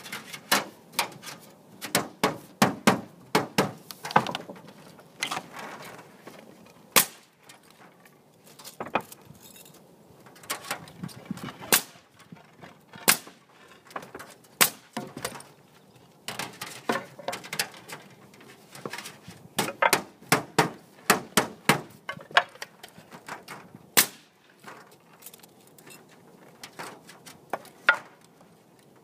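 Pneumatic nail gun firing shot after shot in irregular clusters, fastening aluminum metal shingle panels to the roof deck, with metallic clatter of the panels between shots.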